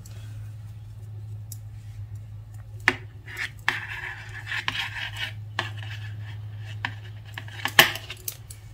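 Metal knitting needles clicking and scraping against each other as stitches are worked, with sharp clicks about three seconds in and a louder one near the end.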